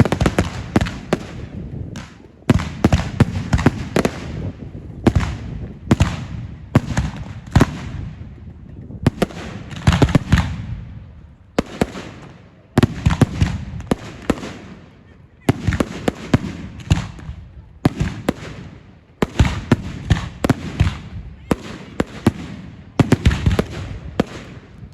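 Fireworks display: volley after volley of sharp bangs and crackling, with brief lulls every couple of seconds.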